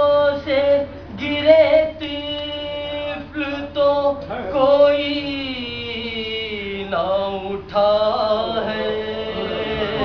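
A man's voice chanting a Salam, an Urdu devotional elegy, unaccompanied, in long held melodic notes with short breaks between phrases.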